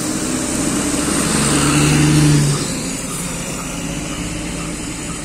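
Bus engine running under steady road noise. The engine note rises and grows louder about two seconds in, then eases off, as if the bus accelerates and then lifts off.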